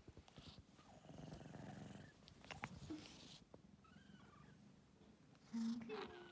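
Tabby kitten purring softly as it is stroked, with a few light rustling clicks from its handling. About five and a half seconds in it gives one short, low meow that bends down in pitch.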